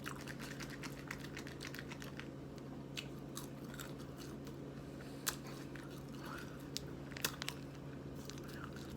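A person chewing and biting into crunchy food at close range, mukbang style. Sharp crunches stand out about five seconds and seven seconds in.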